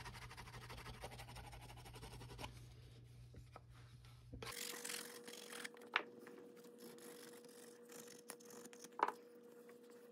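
Deer antler rubbed rapidly back and forth along the waxed edge of stitched veg-tan leather, burnishing it to a sheen: a faint, fast scratchy rubbing. About halfway through the rubbing thins out, a faint steady hum comes in, and a few sharp clicks are heard.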